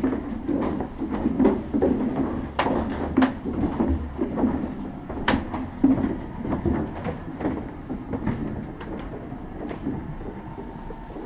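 Footsteps of several people walking over loose wooden boards, with irregular knocks and clatter. The sound is louder at first and eases off in the last few seconds.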